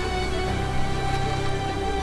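Background music with sustained, held tones.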